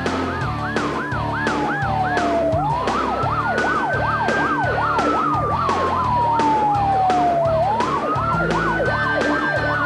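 Police car sirens sounding together: one a slow wail that rises and falls twice, the other a fast yelp of about four chirps a second. Background music with a steady drumbeat runs under them.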